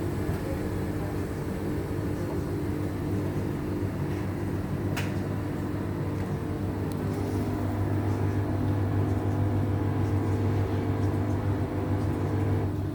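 Samsung EcoBubble front-loading washing machine on its spin cycle with an unbalanced load, the drum and motor giving a steady low hum that grows louder past the halfway point.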